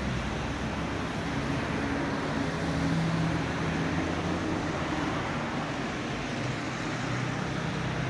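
Road traffic noise: cars passing on a street, with a steady low engine hum that swells slightly about three seconds in.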